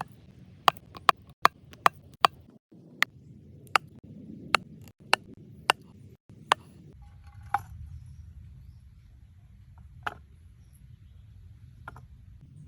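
A series of sharp chopping knocks, quick at first and then slower and more spread out, with a few weaker knocks near the end.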